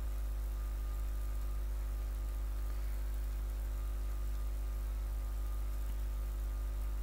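Steady low electrical hum with a buzz of evenly spaced overtones, unchanging throughout, under faint hiss.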